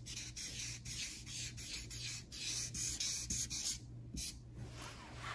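Felt-tip marker rubbing and squeaking across paper as a word is written in cursive, in a run of short strokes with brief pauses that grow fainter near the end.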